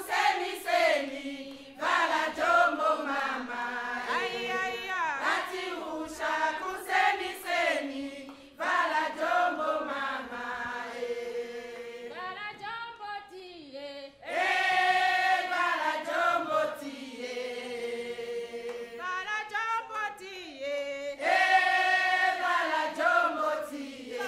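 A choir singing a song, voices in sustained phrases broken by short pauses.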